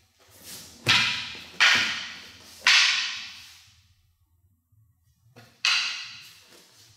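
Wooden practice swords (bokken) striking each other: three sharp clacks about a second apart, then a fourth about three seconds later, each echoing off the room.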